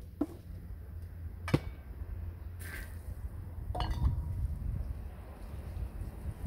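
A few separate clinks and knocks of kitchen dishes and utensils, the sharpest about a second and a half in, over a steady low rumble.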